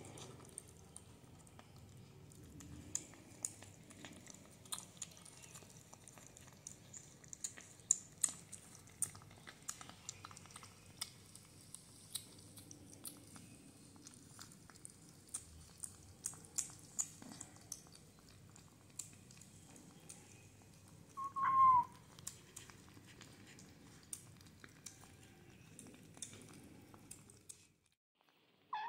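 Kittens eating wet cat food from a plastic bowl: quiet wet chewing and licking with many small sharp clicks. About two-thirds of the way through a kitten gives one short high mew that falls in pitch, and the sound cuts off just before the end.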